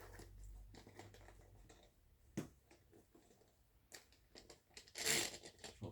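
Light clicks and taps of plastic and metal softbox parts being handled, with one sharper click about two and a half seconds in and a short hissing rustle near the end.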